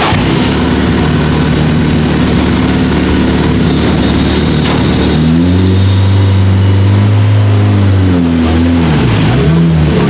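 Nissan Primera Super Touring car's 2.0-litre four-cylinder racing engine running at a fast idle, then revved up and held at a higher pitch about five seconds in, dropping back and blipped near the end.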